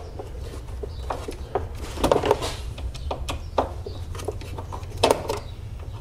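Scattered light clicks and small scrapes of a Torx screwdriver turning a screw out of the radiator fan shroud, with short clusters of clicks about two seconds in and again near the end, over a low steady hum.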